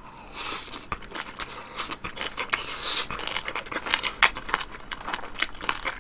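Close-miked chewing of a mouthful of kimchi with fried pork and cheese: a quick, irregular run of crisp, wet crunches and clicks, starting about half a second in.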